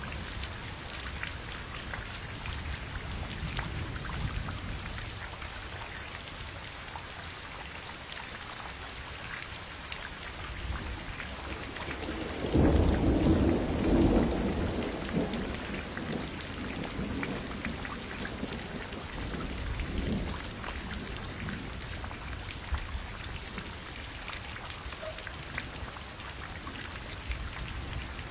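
Thunderstorm: steady rain pattering, with a loud roll of thunder about twelve seconds in that rumbles on for a few seconds and fades into fainter rumbles.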